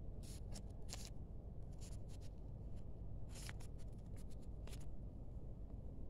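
Short, crisp crinkles and rustles of a T-shirt's collar label and tag and its cotton fabric being handled, coming in scattered clusters about five times over the first five seconds, over steady low background noise.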